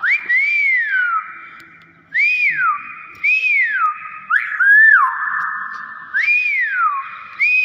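Hill myna giving a series of clear whistles, about six notes that each rise and then fall in pitch, roughly one a second.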